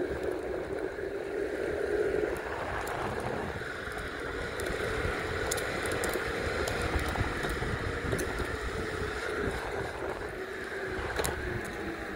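Meepo Mini 2 electric skateboard with Cloud Wheels rolling over an asphalt path: a steady rumble of the wheels with scattered small ticks from grit, and wind on the phone's microphone.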